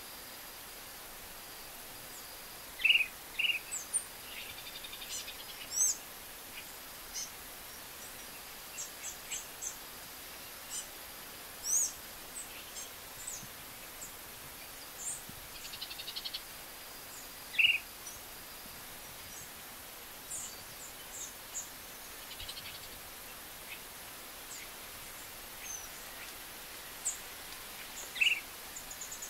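Short-crested flycatcher giving short, loud calls every few seconds, with fainter high-pitched chirps in between.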